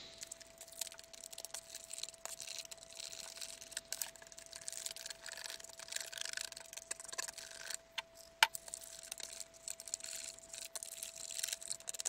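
Plaster of Paris being stirred with water in a clear plastic tub: quiet gritty scraping and small clicks of the stirrer against the plastic as the powder turns to slurry, with one sharper click about eight seconds in.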